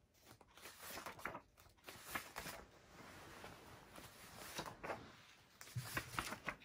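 Paper pages of a colouring book being turned one after another, a series of quiet rustling swishes.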